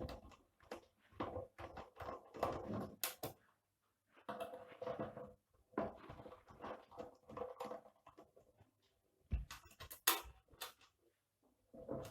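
Irregular clicks, scrapes and knocks of screws being undone and the metal cabinet of a UPS being handled, with a few sharper knocks near the end.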